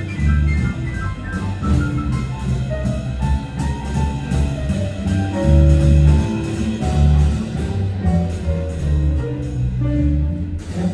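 Band playing an instrumental passage of a jazzy crooner-style love song, with no singing: held bass notes under a moving melody line.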